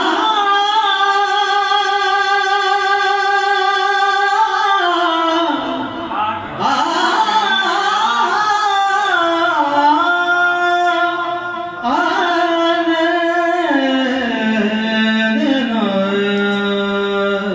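A man singing a ghazal solo: long held notes broken by wavering, ornamented runs.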